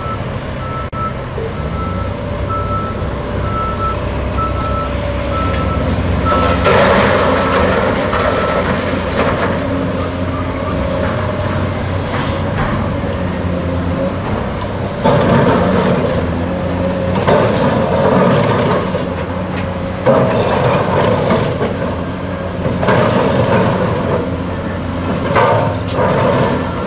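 Atlas 1504 wheeled excavator's diesel engine running under load, rising in repeated surges every few seconds as the bucket digs and moves soil. For the first eight seconds or so a backup alarm beeps steadily, about one beep a second.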